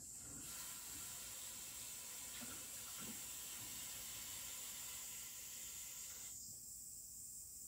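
Steady rushing hiss like water running from a tap, starting just after the start and stopping abruptly about six seconds in, over a constant thin high-pitched ringing.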